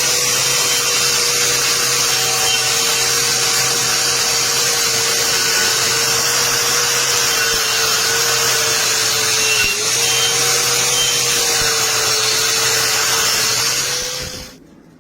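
Electric power tool running steadily under a continuous hiss, its whine dipping briefly once about ten seconds in, then cutting off near the end.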